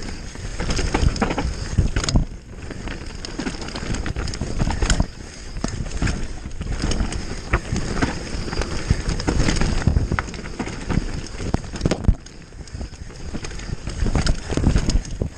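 Mountain bike ridden fast down a dry dirt trail: continuous tyre and trail noise with wind buffeting the microphone, broken by sharp knocks and rattles as the bike hits roots and bumps.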